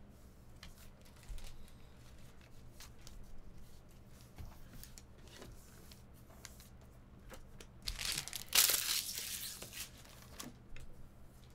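Soft clicks of trading cards being handled, then, about eight seconds in, a loud burst of crinkling and tearing from card-pack wrapping being torn open, lasting about a second and a half.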